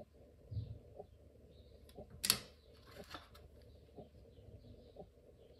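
A small precision screwdriver prying at the plastic housing of a Knog PWR battery pack to release its clips, with one sharp plastic snap a little over two seconds in. Faint light ticks come about once a second.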